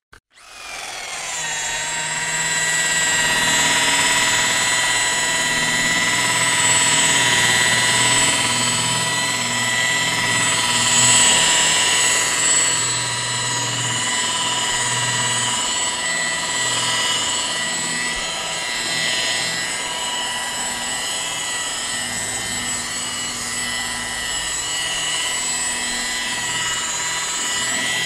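An electric power tool's motor starts and runs steadily at high speed for the whole stretch, a continuous high whine over a buzzing rumble.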